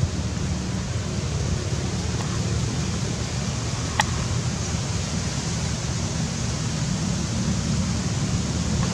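Steady outdoor background noise: a fluctuating low rumble with an even hiss over it, and one sharp click about four seconds in.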